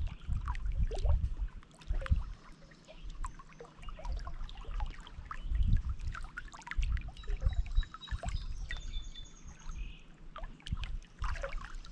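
Small lake waves lapping and splashing against shoreline rocks in uneven, irregular sloshes. A bird's thin, high call sounds faintly behind them from about seven to ten seconds in.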